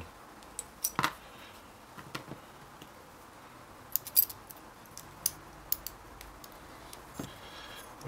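Light metallic clicks and ticks as the brass levers and steel parts of a Ross 600 series lever safe lock are handled and fitted back into the lock body. The clicks are scattered and irregular, a little louder about a second in and about four seconds in.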